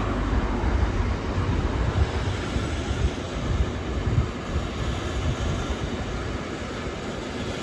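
Intermodal freight train of wagons carrying lorry trailers rolling past: a steady rumble of wheels on rails with irregular low thumps.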